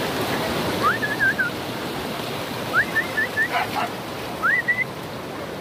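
Rushing stream water as a steady hiss, with three short high-pitched rising calls over it, about a second in, near the middle and near the end.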